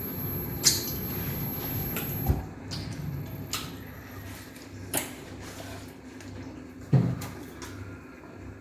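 Eating at a table: about five scattered sharp clicks and knocks, like dishes or utensils and mouth sounds, over a low steady hum.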